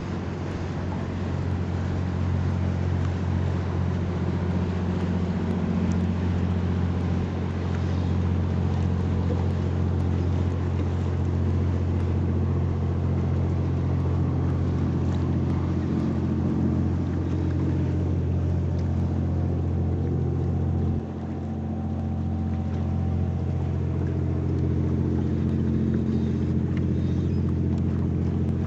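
Motorboat engine running steadily under way, with a low, even hum; the engine note drops briefly about two-thirds of the way through, then picks up again.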